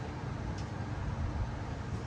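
Wind rumbling on the microphone, a steady low buffeting with a faint hum under it.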